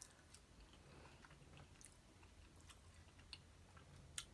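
A person chewing food with faint, soft mouth clicks scattered through, and one sharper click near the end.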